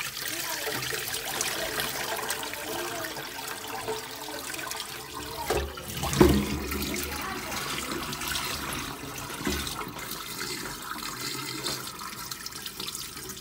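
Water rushing and splashing in a pot at the kitchen sink as rice is washed by hand, with a couple of knocks near the middle, the louder one about six seconds in.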